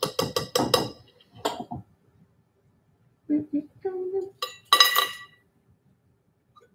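Metal kitchen utensils clinking against dishes: a quick run of about eight ringing clinks in the first second, one more shortly after, then a brighter ringing clank about five seconds in. Between them come a few short, low voice sounds, like humming.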